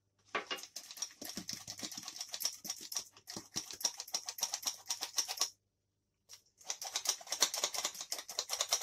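Hand-operated metal flour sifter being worked, its mechanism clicking rapidly as flour is pushed through the mesh. Two runs of fast clicking, with a pause of about a second a little past halfway.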